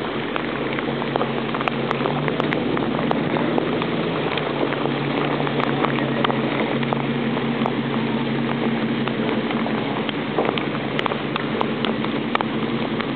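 Heavy rain and floodwater: a steady hiss of water with many sharp ticks of drops striking close by, over a low steady hum.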